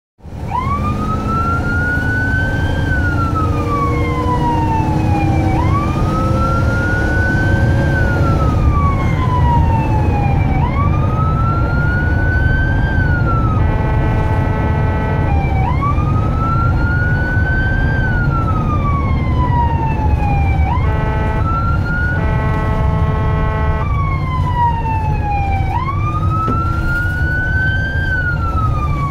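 Ambulance siren on the wail setting, heard from inside the cab, its pitch rising and falling about every five seconds over the engine and road rumble. A steady horn blast sounds about halfway through, with two more shortly after and another starting at the very end.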